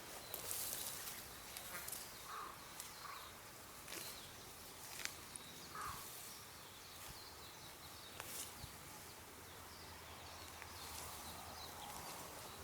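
Faint outdoor field ambience: a few short, distant bird chirps over scattered light rustles and clicks.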